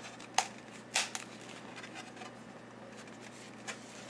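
Handling noise from a foam tail piece and a hobby knife: a few short, sharp clicks and scrapes in the first second or so, and a fainter one near the end.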